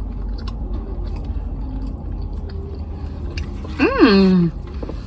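Close-up chewing of a sandwich, soft mouth sounds with faint small clicks, over a low steady hum. About four seconds in, a short voiced sound rises and falls in pitch.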